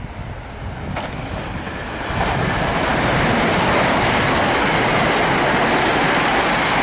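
Two coupled Class 168 diesel multiple units passing through the station at speed without stopping: a rush of wheel and engine noise that builds over about two seconds and then holds steady.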